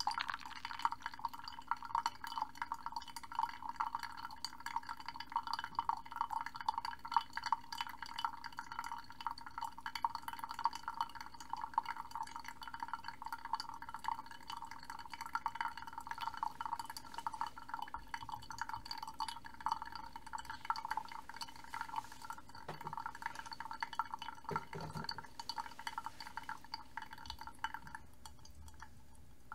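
A thin stream of water pouring steadily onto the blooming coffee grounds in a paper-lined pour-over dripper, a continuous fine splashing and trickling that stops about a second before the end.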